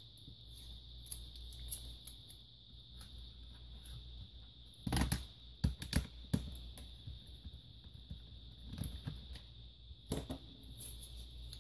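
Small screwdriver work on a laptop: scattered light clicks and knocks of a screwdriver and loosened screws against the plastic case, with a cluster of sharper knocks about five seconds in and another about ten seconds in, over a steady background hum.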